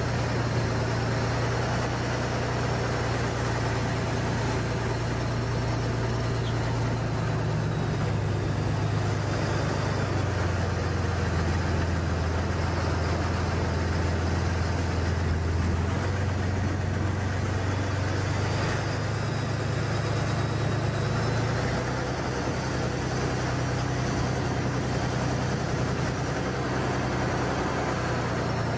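Truck engine running steadily. Its low note drops a little about eight seconds in and rises again about twenty seconds later.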